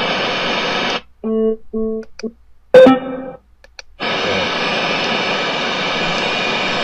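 Replica JBL Xtreme Bluetooth speaker sounding through its own driver: a second of radio static, a few short electronic beeps, a plucked guitar-like chime about three seconds in, then steady radio hiss that cuts off near the end. Picking up radio static like this is taken as the sign that the speaker is a replica, not an original.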